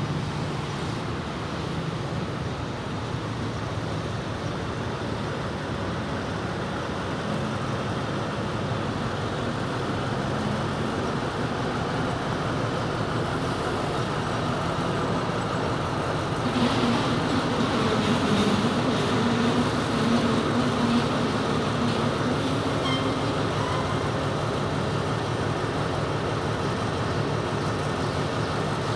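Diesel locomotive of a stone-hauling freight train standing and running its engine, which revs up and grows louder just past halfway.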